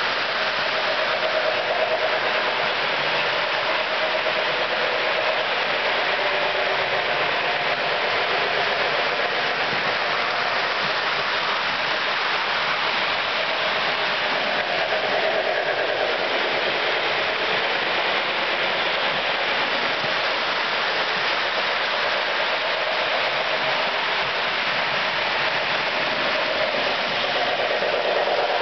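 Lionel model train running on the layout's track: a steady whirring noise of its motor and wheels, with a faint wavering hum that swells and fades.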